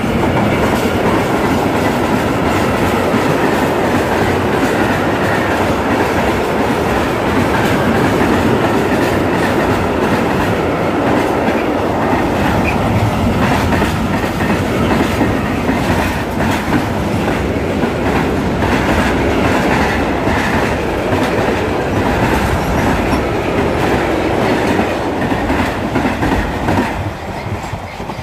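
Freight train hauled by a DB electric locomotive passing close by, its tank and goods wagons rolling over the rails with a steady clatter and clickety-clack of wheels over rail joints. The sound drops off near the end as the last wagons pull away.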